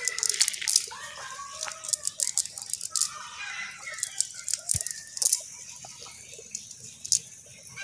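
Cast net being pulled and shaken over muddy ground, its weighted edge rattling with sharp, irregular clicks and clinks, and the leaves and debris caught in the mesh rustling.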